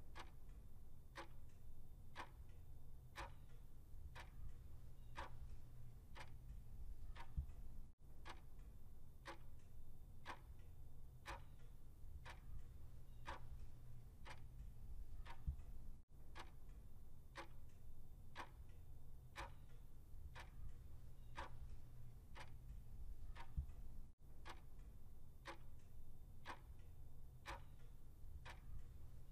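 Clock-ticking sound effect counting down a quiz answer timer: short, even ticks about once a second over a low steady hum.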